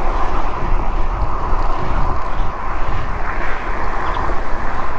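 Steady rushing noise of wind and road while riding a road bicycle, heavy at the low end, with no distinct events.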